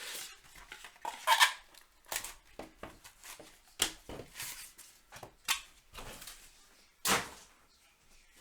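Hands handling freshly opened trading cards and their packaging: a series of light clicks, scrapes and rustles, with sharper clicks about a second in and about seven seconds in.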